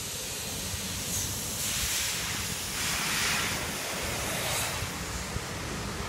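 Street noise: wind rumbling on the microphone, with two swells of rushing noise from passing car traffic about a second and a half and three seconds in.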